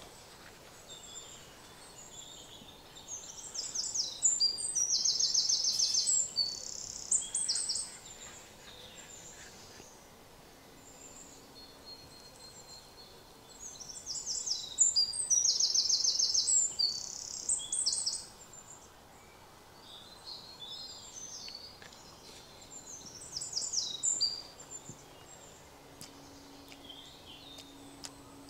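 A songbird singing two long phrases of rapid repeated high notes, each about four seconds long and roughly ten seconds apart, with a shorter, weaker phrase later on.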